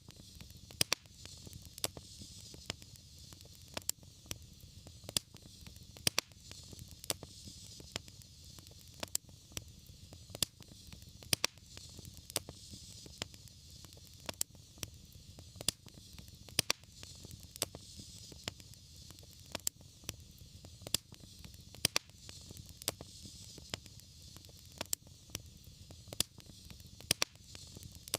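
Wood fire crackling: sharp pops at irregular intervals, about one or two a second, over a steady hiss and low rumble of the flames.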